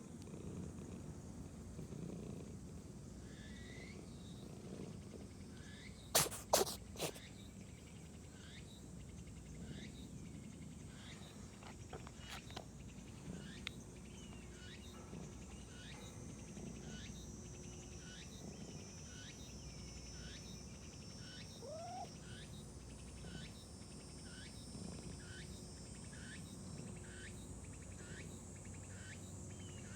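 Domestic cat purring steadily while being stroked, then sneezing three times in quick succession about six seconds in.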